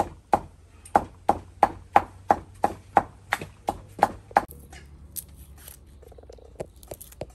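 Stone pestle pounding dried red chillies in a stone mortar, an even beat of about three strikes a second that stops about four and a half seconds in. A couple of single knocks follow near the end.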